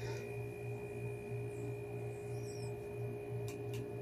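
Steady low electrical hum with a faint high whine over it, and two faint clicks near the end.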